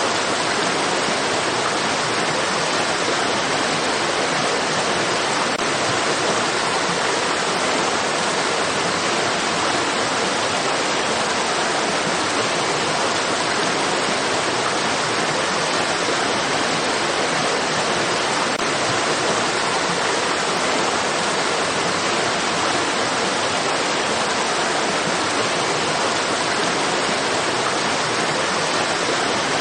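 Water in a stream rushing steadily: an even, unbroken hiss of flowing water.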